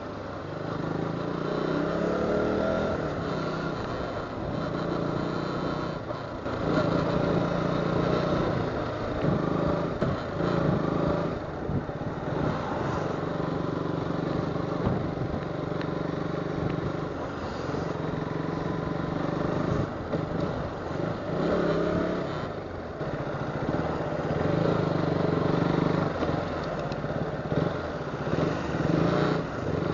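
KTM motorcycle engine running under way, its pitch rising as it accelerates in the first few seconds and then easing off and picking up again several times with the throttle.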